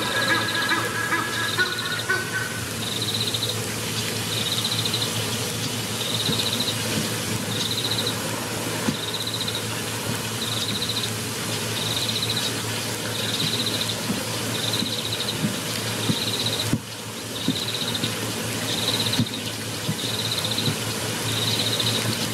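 A short, high trilled call repeating about every second and a half, from a small wild animal, over a steady outdoor hiss. A few held pitched notes fade out about two seconds in.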